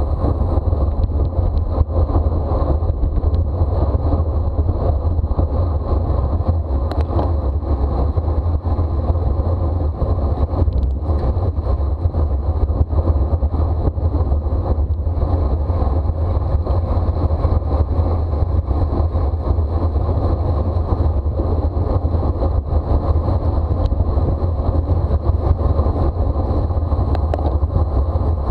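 Steady wind rush buffeting the microphone of a camera riding along on a racing bicycle at speed, heaviest in the low rumble. A faint, thin high whine runs steadily underneath.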